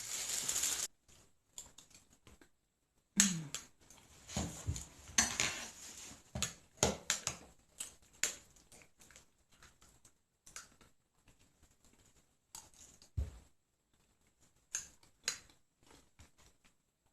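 Plastic wrap being pulled, torn and pressed over a bowl: irregular crinkles, clicks and light knocks, with one low thump about 13 seconds in.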